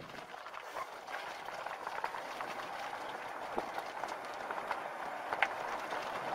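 Golf cart driving along a paved cart path: a steady rushing of tyres and cart motion, with light rattling and ticking from the cart and one sharper click about five seconds in.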